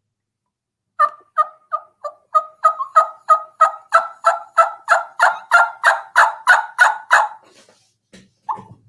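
Turkey call imitating a hen's yelping: about two dozen short two-note yelps that start soft and widely spaced, then come faster, about four a second, and grow steadily louder, building in excitement and rasp the way a caller works up a gobbler on the roost.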